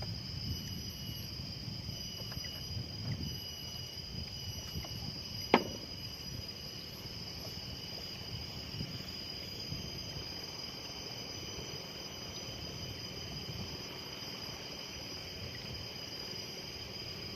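Steady high-pitched insect chorus, two thin shrill tones holding on, over a low rumble. A single sharp click sounds about five and a half seconds in.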